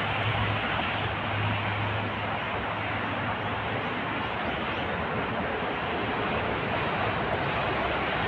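Steady vehicle noise, an even rush with a low hum that fades out about halfway through.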